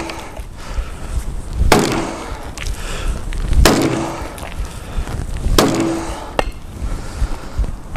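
Axe chopping into a log on a chopping block: three heavy strikes about two seconds apart, each with a brief ring, and a smaller knock near the end.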